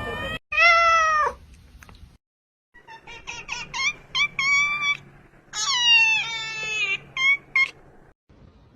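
Cat meowing: one drawn-out falling meow, then after a short pause a run of short meows and a longer wavering meow, ending with two quick ones.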